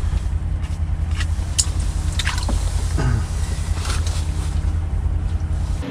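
Steady low motor hum, like an engine running, with several light clicks and taps of handling.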